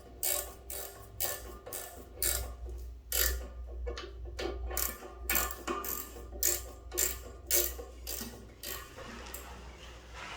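Ratchet spanner being worked back and forth, clicking in regular strokes about two a second as it tightens the bolts that hold a toilet bowl down over its wax ring; the clicking stops near the end.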